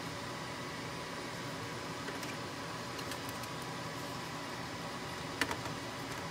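Steady background hiss with a faint whine, and a few light clicks, then one sharper click about five seconds in, as a CPU heatsink is set onto the processor socket for a dry fit.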